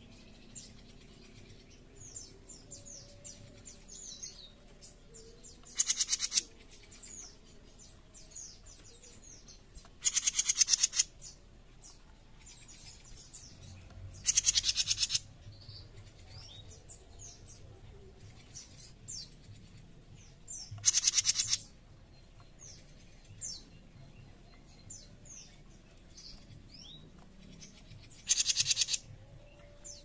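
Jenggot mini songbird giving its harsh, rasping call five times: each call is a rapid buzzing rattle about a second long, spaced several seconds apart. Faint high chirps can be heard between the calls.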